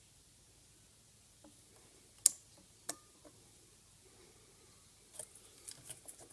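Small metal clicks as a tiny pair of Vise-grip locking pliers is fitted and clamped shut: one sharp click a little over two seconds in, a lighter one just after, and a quick run of light clicks near the end.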